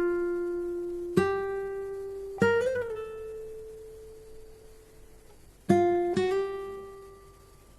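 Slow, sparse music on a plucked string instrument: four single notes, each left to ring and fade. The second note bends in pitch just after it is plucked, and a long ringing pause falls before the last two.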